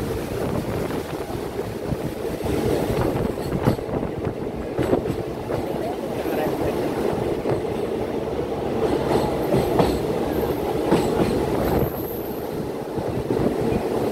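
Train running on rails, heard from aboard: a steady rumble of wheels with clacks at uneven intervals as the wheels pass over rail joints.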